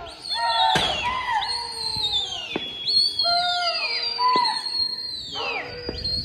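Several people whistling shrilly at once, with long held whistles that each drop in pitch at the end, overlapping one another. A single sharp crack comes about a second in.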